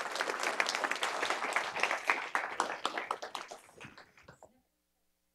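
Audience applauding, the clapping thinning out and stopping about four and a half seconds in.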